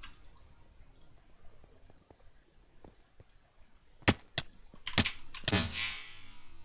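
Computer keyboard keys clicking: scattered faint taps, then a few sharp, loud clicks about four seconds in, followed by a brief rustling noise.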